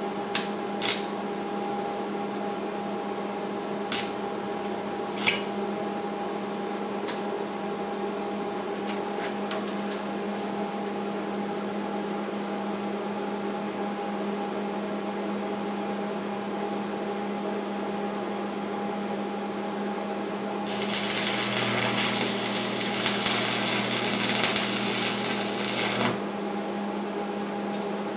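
Arc welding on steel bars: about 21 seconds in, roughly five seconds of loud, dense crackling from the arc, cutting off suddenly. A steady hum runs underneath throughout. A few sharp clicks and taps come in the first five seconds.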